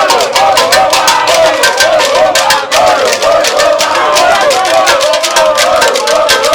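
Music with fast, dense percussion strokes like a shaker, and a melody line that slides up and down in pitch over it.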